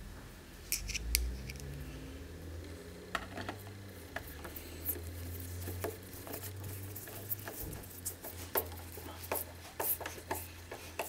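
Scattered light clicks and taps of a 3D-printed plastic mounting plate and its screws being handled and screwed down with a cordless screwdriver, over a low steady hum.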